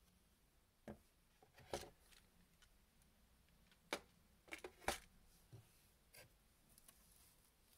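Quiet handling sounds: several short clicks and knocks as a glue tube and a clear plastic box of rhinestones are put down on a cloth, the loudest about two seconds in and again about five seconds in.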